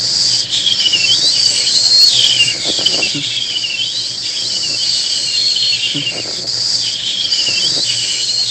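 Dense, steady insect chorus, with repeated short chirping calls that swoop up and down about once a second.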